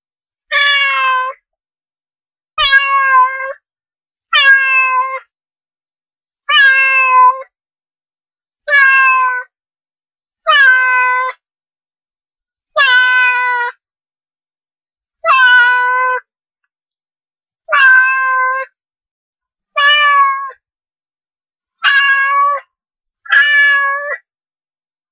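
Domestic cat meowing: twelve short meows about two seconds apart, each under a second long, with dead silence between them.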